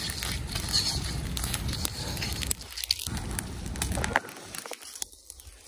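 Hands rubbing wet mud over the outside of a metal karahi (wok), with a small wood fire crackling. The rubbing stops about four seconds in and the sound drops, leaving mostly the fire's crackle.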